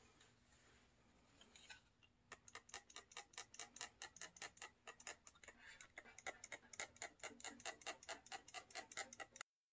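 A hand trigger spray bottle squirting cleaner onto a computer case in rapid, even squirts, about six a second. The squirts start a couple of seconds in and stop abruptly near the end.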